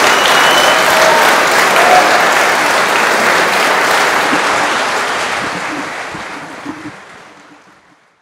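Audience applauding, a dense steady clapping that fades out over the last few seconds.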